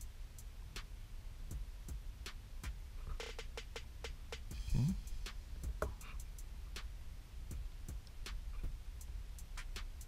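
Small sharp clicks and taps of hands working on an open laptop's internals with a small screwdriver and screw, over a low steady hum. About halfway through comes a short, louder clatter and scrape.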